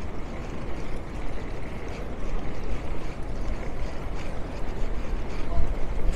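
City street ambience: a steady low rumble with a hiss over it, getting a little louder near the end.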